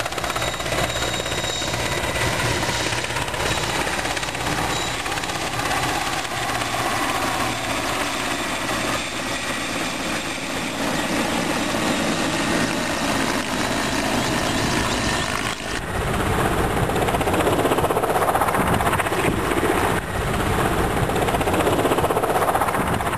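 Helicopter running with a steady rapid rotor chop and turbine noise. The sound changes abruptly about two-thirds of the way through and is a little louder after.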